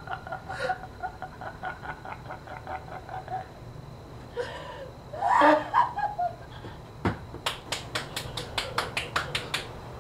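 A young man's high, rhythmic cackling laugh that breaks off about three seconds in, then a louder outburst of laughter that swoops up and down in pitch. Near the end comes a thump, followed by a fast run of short, sharp sounds at about five a second.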